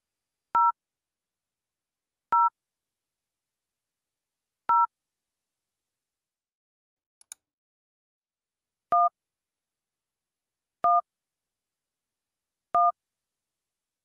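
Telephone keypad touch tones (DTMF): six short two-tone beeps about two seconds apart. The first three share one tone pair and the last three a lower pair, so one key is pressed three times and then a second key three times. A faint brief tick comes about seven seconds in.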